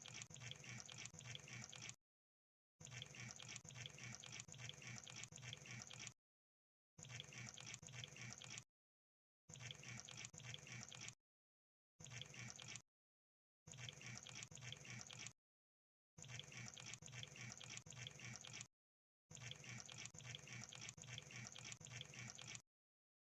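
Crab sound effect: faint, rapid crackling clicks in eight bursts of about one to three seconds each, separated by short complete silences.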